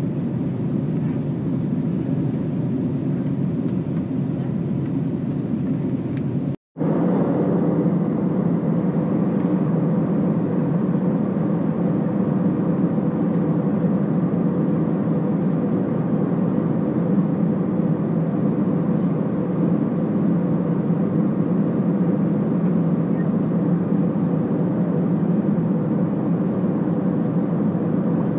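Steady drone of an Airbus A320neo in flight as heard inside the cabin: engine hum and airflow noise with a low steady hum. About six and a half seconds in it breaks off for a moment, then returns slightly louder, and it fades out at the very end.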